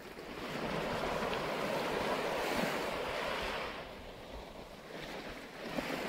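Small, gentle waves washing up a sandy shore and drawing back. The wash swells for about three seconds, ebbs, then begins to swell again near the end.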